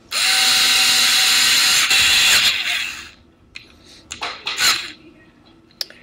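Electric screwdriver running for about three seconds, with a brief break about two seconds in, driving a screw back into a speaker's metal rear panel. A few light clicks and knocks follow.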